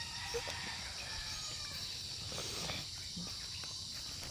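Steady high-pitched buzz of an insect chorus in open farmland, with a few faint short sounds over it.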